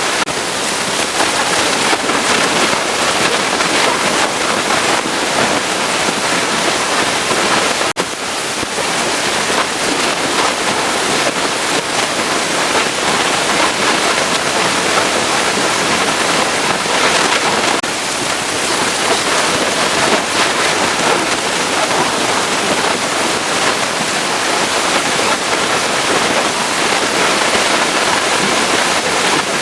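Pressure washer spraying water onto a truck, a loud steady hiss that breaks off for a moment about eight seconds in.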